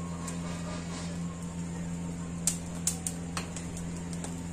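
Corn cob roasting over a low gas-stove flame: several short sharp crackles and clicks, the loudest about two and a half and three seconds in, over a steady low hum.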